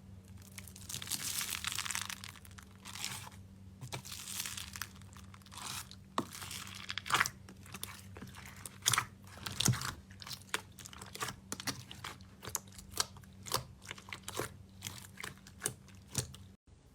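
Crunchy slime being squeezed and pressed by hand. It starts as a crackling crunch, then turns into a run of sharp pops and clicks, several a second, over a faint steady electrical hum.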